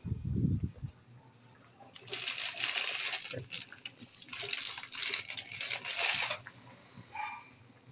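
Seasoning sachets crinkling and being torn open in the hand: a dense crackle of plastic packaging from about two seconds in until past six seconds. A low thump at the very start.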